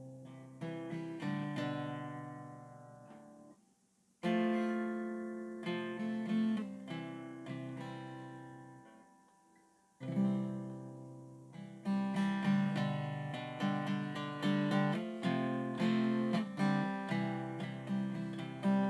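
Acoustic guitar playing a song's introduction: chords struck and left to ring out, fading almost to silence before the next phrase starts at about 4 s and again at about 10 s, then a steadier rhythm of picked notes from about 12 s on.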